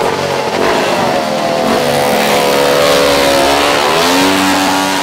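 Small custom motorbike and trike engines revving as they drive slowly past. The engine note sinks in the middle, then climbs about four seconds in and holds there.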